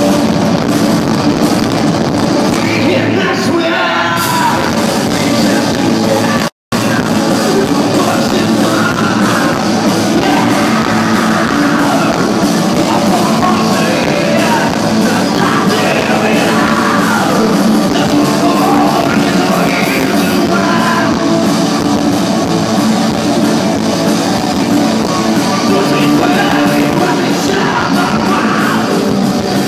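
Rock band playing live and loud: electric guitars, bass and a drum kit, with vocals over them. The audio drops out completely for a split second about six and a half seconds in.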